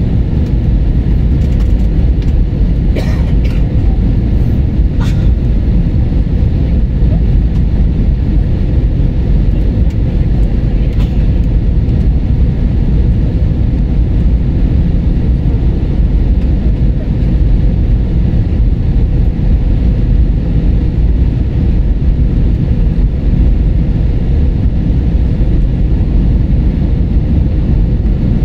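Steady cabin noise inside an Airbus A320-family airliner in flight: an even rumble of the engines and rushing air, with a few faint ticks about 3, 5 and 11 seconds in.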